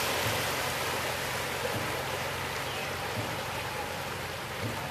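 Rushing and splashing of water churned by a dragon boat crew's paddles as the boat passes close by, with faint low thuds about every second and a half.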